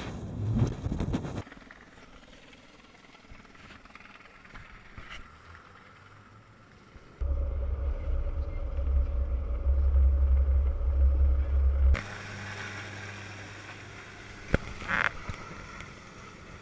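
Small boat at sea heard across several cuts: a brief rush of wind and water, a quieter stretch, then a steady low engine hum for about five seconds that stops suddenly. After that comes a fuller rush of the boat running through spray, with a sharp click near the end.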